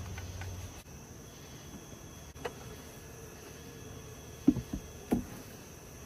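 Wooden beehive parts knocking as they are handled: a light knock about two and a half seconds in, then a few louder knocks near the end. A steady high insect chirring runs underneath.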